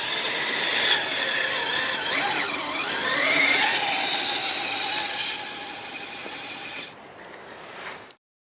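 Electric motor and geared drivetrain of a Kyosho Blizzard RC snowcat whining under load, its pitch rising and falling with the throttle as it strains in sticky wet snow. The whine drops away near the end.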